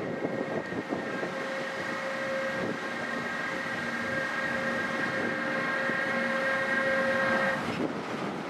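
Electric locomotive hauling a container freight train slowly past, with rumbling from the wheels and a steady high-pitched chord of several tones that cuts off suddenly near the end.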